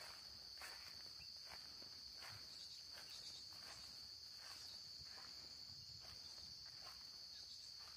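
A steady high-pitched chorus of crickets, faint but unbroken. Soft, regular footsteps come a little under one a second.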